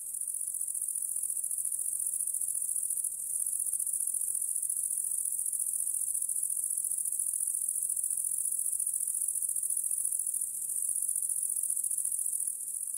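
Steady chorus of crickets, a high continuous trill, fading out near the end.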